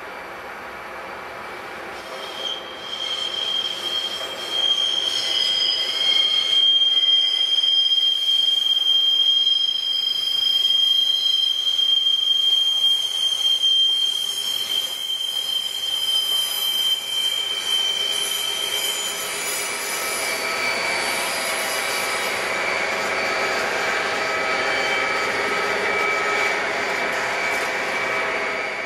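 Nuclear flask train's wheels squealing as it rolls slowly around curved track. A high, steady squeal starts about two seconds in and lasts until about two-thirds through, then gives way to lower, mixed squealing tones until the end.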